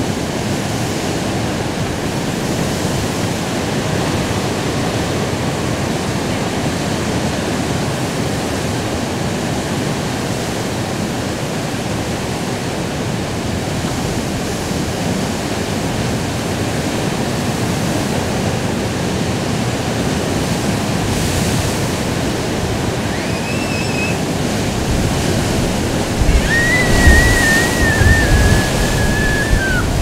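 Rough sea: a steady wash of surf and wind, with a heavier wave surge a little after halfway through the second half. Near the end, high thin wavering tones come twice, the second held for about three seconds.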